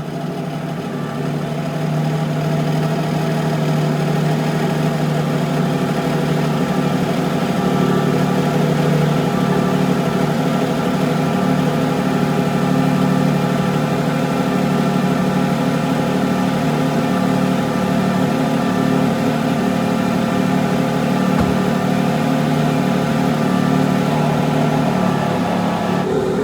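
A supercar engine idling steadily. It grows louder over the first couple of seconds, then holds an even idle with no revving.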